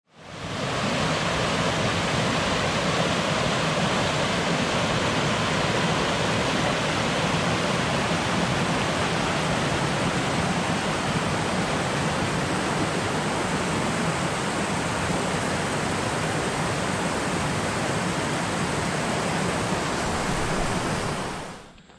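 Rocky mountain stream rushing over boulders: a steady rush of water that fades in at the start and fades out about a second before the end.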